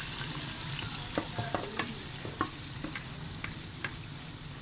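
Yogurt-marinated chicken frying in hot ghee in an aluminium wok, just added to the pan: a steady sizzle with scattered sharp crackles.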